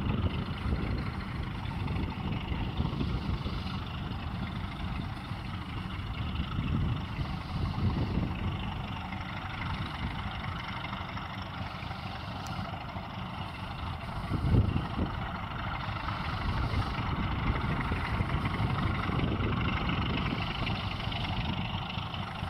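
Diesel engines of ChME3 shunting locomotives working under load as they haul and push a freight train: a steady engine sound with some rumble of wagons. One louder knock comes about fourteen seconds in.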